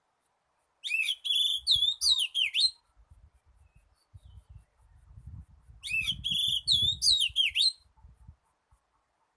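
Oriental magpie-robin song: two matching phrases of rising whistles and quick trills, one about a second in and one about six seconds in, each lasting about two seconds. A faint low rumble sits underneath.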